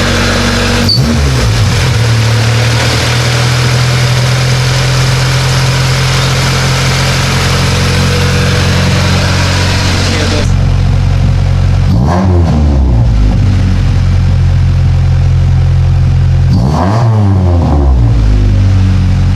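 Honda Civic's swapped ZC four-cylinder engine running through a newly fitted DNA Motoring header, idling steadily and revved in three short blips: about a second in, about twelve seconds in, and near the end. A loud hiss rides over it through the first half and cuts off suddenly about halfway.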